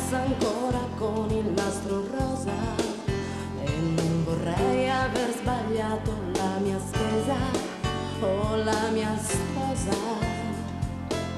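A woman singing an Italian pop song lead vocal over a band accompaniment with a steady beat.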